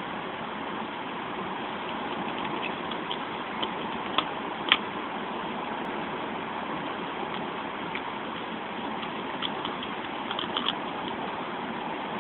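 Rabbits nibbling fresh leaves, heard as a few faint crisp clicks and crunches, over a steady background noise.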